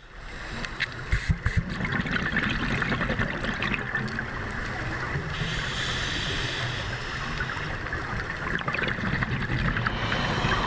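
Underwater sound picked up through a dive camera's housing: a diver's exhaled regulator bubbles rushing and burbling, with scattered small clicks throughout. It rises in over the first second, and a stronger burst of bubble hiss comes around the middle.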